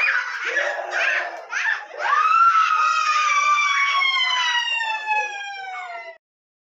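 Shrill screaming: a couple of seconds of ragged, overlapping screams, then one long high scream that slowly falls in pitch and cuts off suddenly about six seconds in.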